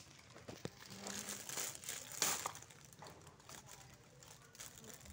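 Clear plastic wrapping crinkling and rustling as it is handled and pulled open around a toy tractor and trolley, loudest about two seconds in.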